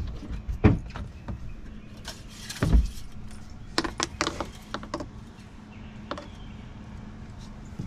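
Hand-work handling noises at a boat's inboard engine: a scatter of light clicks and knocks, with one heavier low thump about three seconds in and a quick run of sharp clicks about a second later, over a faint steady hum.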